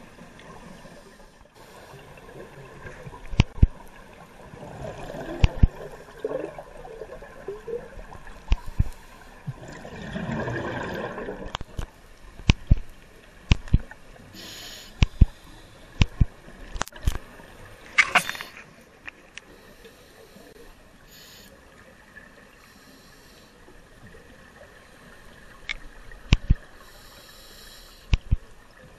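Scuba regulator breathing heard underwater: gurgling bursts of exhaled bubbles and short hissing inhalations a few seconds apart. Loud, sharp clicks are scattered irregularly throughout.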